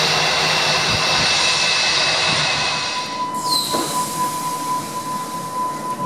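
Hamburg U-Bahn train standing at an underground platform as its doors close, with a steady high tone sounding. Before it comes a steady rushing noise that changes abruptly a little over three seconds in.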